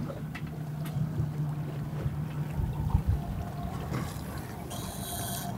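A boat's motor running steadily at trolling speed: a low hum with a held tone. A brief hiss comes in near the end.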